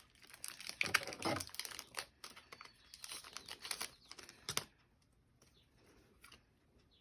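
Foil booster pack wrapper crinkling and tearing as it is pulled open, a dense run of crackles that stops about four and a half seconds in, followed by faint handling sounds.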